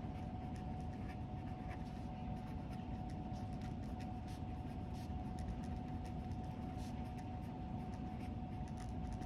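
Felt-tip pen scratching across paper in short strokes as words are handwritten, over a steady low room hum and a faint constant high tone.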